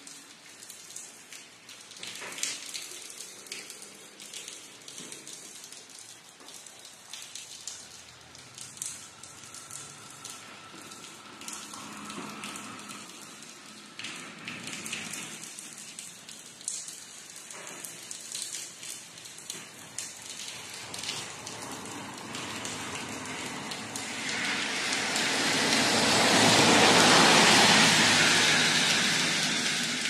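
Rain falling, with scattered drips and patters on surfaces. About 24 seconds in, a much louder hiss swells up, peaks and begins to fade near the end.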